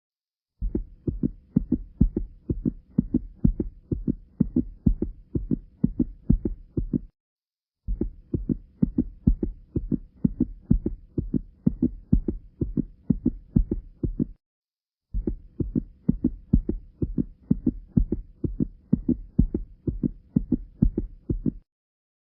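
Heart sounds of tricuspid stenosis: a rapid run of heartbeats with a murmur between the beats, the sign of a narrowed tricuspid valve. The recording plays three times over, each run about six and a half seconds long, with short breaks of silence between them.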